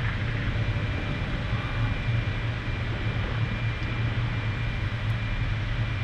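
Steady low droning hum of a submarine's machinery heard inside its cabin, with a faint thin whine held above it.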